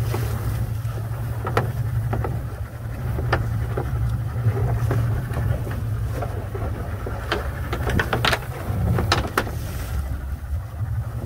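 Outboard motor of a small fishing boat running steadily at low speed, over a wash of water and wind. Scattered sharp knocks and clicks come through it, several close together in the second half.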